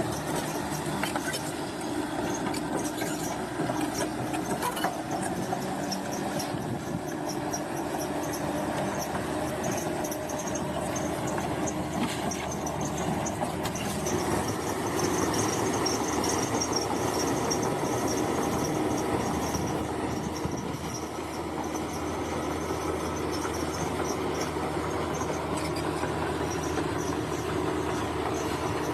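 Bulldozer at work: its diesel engine running steadily under load, with a continuous high metallic squeal and fine rattle from the steel tracks.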